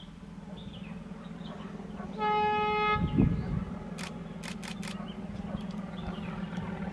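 Diesel train running with a steady low drone that slowly grows louder, and one short horn blast a little over two seconds in. A thump follows just after the horn, and a few sharp clicks come about four seconds in.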